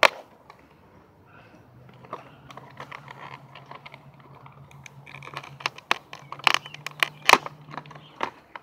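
Plastic and cardboard toy packaging being cut and pried open with a knife: irregular scraping, crackling and sharp clicks, loudest about two thirds of the way in, over a faint low steady hum.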